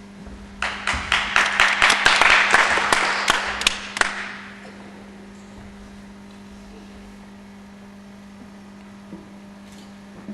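Small hall audience applauding: a burst of clapping starts about half a second in, peaks, and dies away after about four seconds, leaving quiet room tone with a steady low hum.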